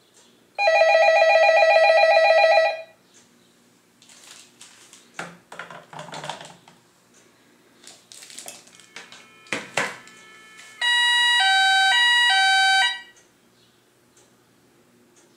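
Novelty telephone electronic ringers: a warbling trill ring starts about half a second in and lasts about two seconds, then rustling and clicks from handling the phones, then about eleven seconds in a siren-like ring that alternates between two pitches about twice a second for about two seconds.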